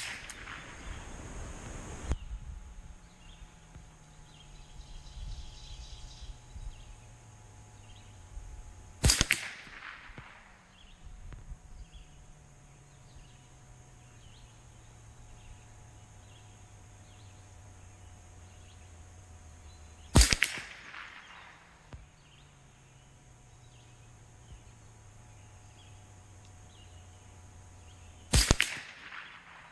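Three single shots from a Savage A22 semi-automatic rimfire rifle, fired slowly with about eight to eleven seconds between them, each a sharp crack followed by a short echo.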